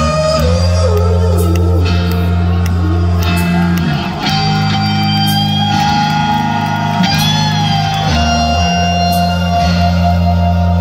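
Rock band playing live, heard from the crowd. An electric guitar lead bends and slides between notes, then holds a long note, over low bass notes that change every few seconds, with light cymbal hits.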